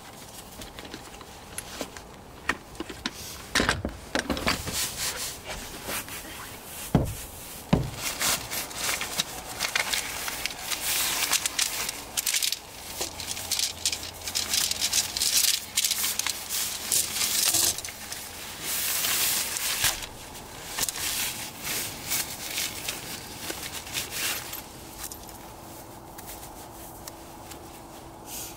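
Irregular rustling and rubbing, with scattered light knocks and clicks, as of things being handled. The rustling is densest through the middle and dies down near the end.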